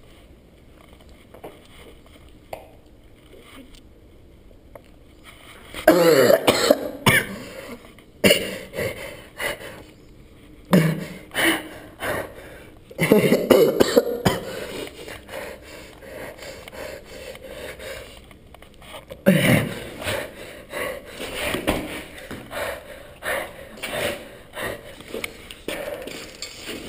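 A man coughing in several harsh fits, starting about six seconds in and coming again around 11, 13 and 19 seconds, with throat clearing and shorter coughs between them.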